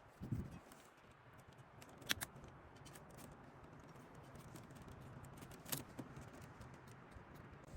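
Faint handling sounds: a few sharp clicks, about a second, two seconds and nearly six seconds in, over low background noise.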